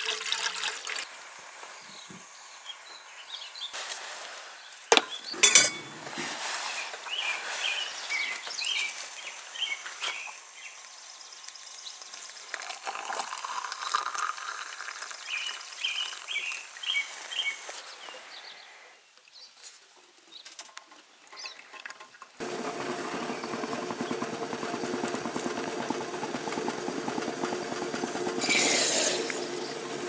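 Water poured into a steel pot, with a few knocks of metal cookware, then hot water poured into a plastic plunger coffee press, the pour rising in pitch as it fills, while small birds chirp in short runs. About two-thirds of the way through, a steady hum cuts in suddenly and runs on.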